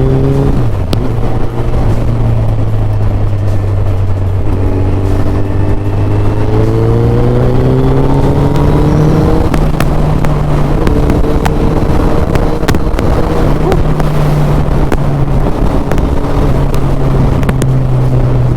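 Suzuki Hayabusa's inline-four engine under way, heard from the bike. The pitch drops about a second in, climbs steadily from about four seconds, falls back at a shift about nine and a half seconds in, then holds at a steady cruise.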